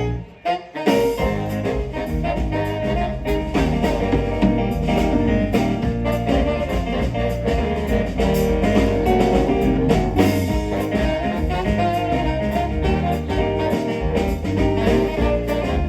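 Jazzy music with guitar and a steady drum beat; it drops out briefly about half a second in, then carries on.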